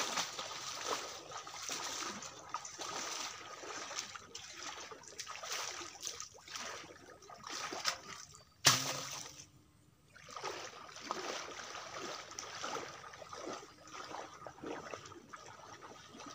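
Muddy pond water splashing and sloshing as a person wades waist-deep and sweeps a round basin through it, with one sharp, loud splash a little past halfway.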